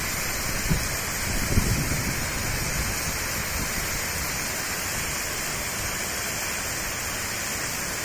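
Small waterfall on a mountain stream: a steady rushing hiss of falling and splashing water, with a few low bumps about one and two seconds in.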